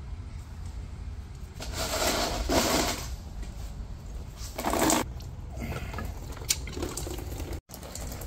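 Coolant splashing out in two short gushes, the first lasting about a second and a half, the second briefly a few seconds later, as hoses come off the supercharger's electric coolant pump.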